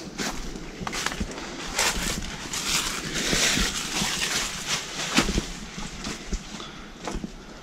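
Footsteps crunching and rustling through thick dry leaf litter in an uneven walking rhythm. The crunching is densest a few seconds in, with one sharper crack a little after the middle.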